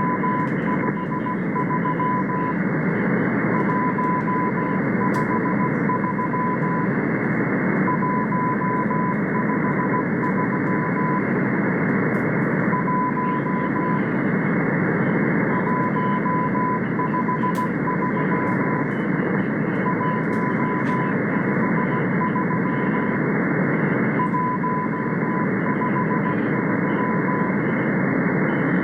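Morse code from the Russian M12 number station, received on shortwave: a keyed tone of about 1 kHz sent in short groups with pauses between them. The tone sits under heavy band hiss and static, narrowed by the receiver's filter.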